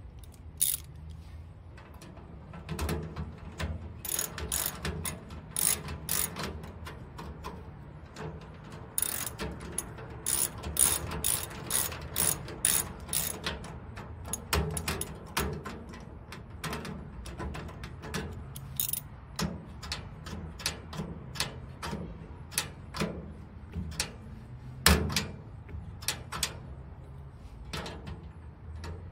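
Socket ratchet wrench clicking in quick runs as a nut is worked on a steel stove-door fitting, with pauses between the runs and a sharper metal knock near the end.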